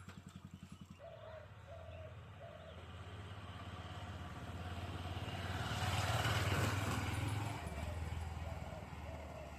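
A motor vehicle, likely a motorcycle, passes by, growing louder to a peak about six seconds in and then fading. A bird calls in short repeated notes near the start and again near the end.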